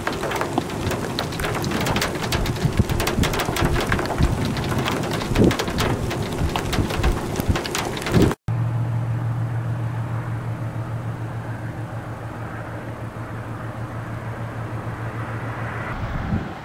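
Rain and wind beating on the microphone, with dense crackling patter. After a cut about eight seconds in, a steady low vehicle hum under softer wind and rain noise.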